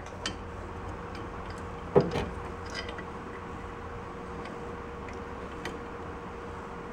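A hammer striking a brass drift to drive a bearing onto the axle of a VW bus reduction gear box: one sharp metallic knock about two seconds in, and a few light metal ticks and clinks. Under it runs a steady low hum.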